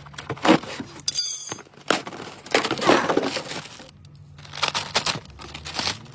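Irregular clinks, knocks and short scraping or rustling noises of parts and tools being handled during an air strut replacement, over a steady low hum.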